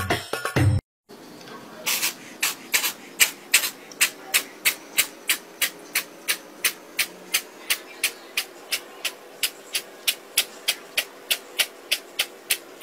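A ginger kitten crying in a long run of short, high-pitched mews, about three a second. Before it comes a moment of beatboxed music, which stops abruptly.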